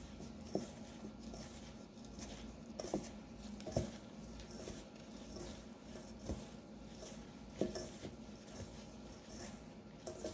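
Hands mixing and pressing crumbly pastry dough in a bowl: soft squishing and rustling with scattered light knocks against the bowl.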